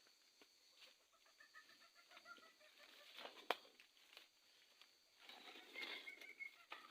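Faint calls of an Asian palm civet (musang): short, high, laugh-like notes in a quick run about a second in, and again near the end. A single sharp click about halfway through is the loudest sound.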